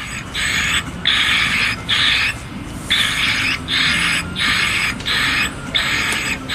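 Harsh, rasping bird distress calls broadcast through the loudspeaker of a KORSHUN acoustic bird repeller, repeated in a steady run of about half-second calls with one short break midway. The calls are played to frighten corvids and other pest birds away.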